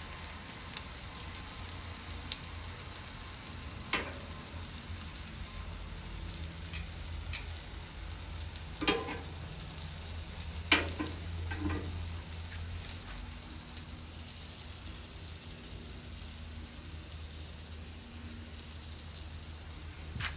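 Italian sausages and onions sizzling steadily on a Blackstone flat-top griddle, with a few sharp knocks, the loudest about nine and eleven seconds in.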